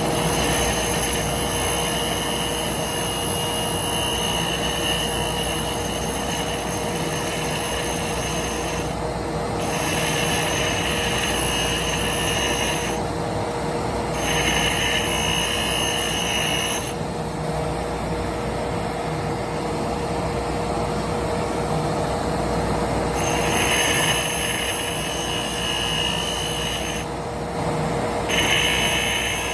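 Steady drone of a dust collector and grinder motor, with a high-pitched grinding whine as carbide stump grinder teeth are pushed against a diamond wheel. The whine comes in passes of a few seconds each and stops briefly between them, about five times.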